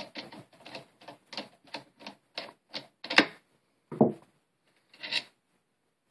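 Screwdriver turning out the long trigger-guard screw of a Mosin-Nagant rifle: a short rasping scrape with each turn, about three a second, then a few louder knocks about three seconds in.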